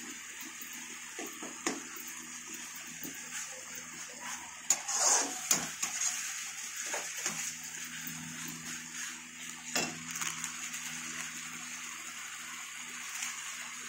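Curry simmering and sizzling in a steel kadai over a gas burner, with a steady hiss. A metal spatula scrapes and knocks against the pan a few times, loudest about five seconds in.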